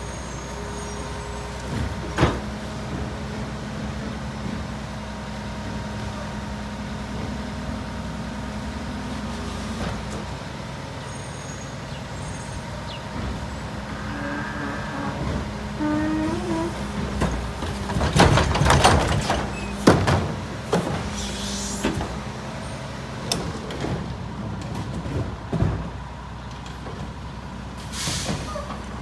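Garbage truck running steadily with a constant whine over the engine hum. About two-thirds through comes a cluster of loud bangs and clatter, and near the end a couple of short air hisses.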